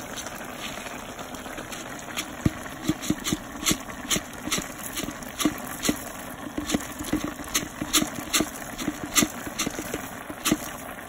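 Pot of pork caldereta stew at a boil, with thick bubbles plopping and popping irregularly over a low hiss; the pops begin about two seconds in.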